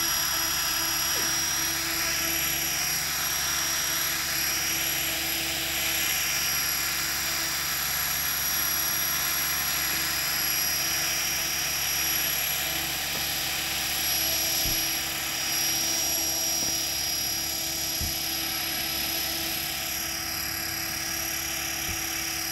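Align T-Rex 500 electric RC helicopter hovering low: a steady high whine from its motor and gears over the rushing swish of the spinning rotor blades.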